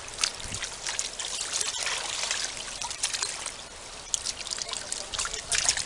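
Water splashing and dripping as a wet cast net is drawn through and out of shallow water, with many small splashes over a steady trickle.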